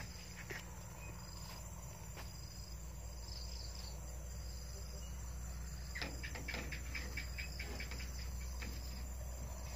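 Crickets chirring steadily, a high even drone. About six seconds in comes a quick run of clicks lasting a second or so.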